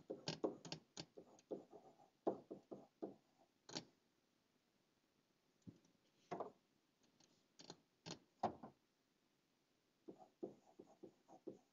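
Faint, irregular clicks and taps of a pen stylus on a drawing tablet while hand-writing, thinning out for a few seconds in the middle.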